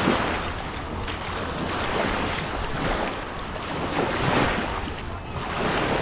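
Sea waves washing on a beach, with wind buffeting the microphone; the rush swells and eases every couple of seconds.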